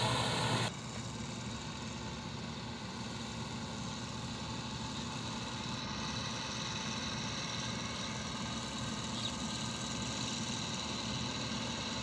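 New Holland combine harvester running steadily while it harvests rice, its engine drone growing gradually louder as it draws closer. A louder sound cuts off abruptly less than a second in.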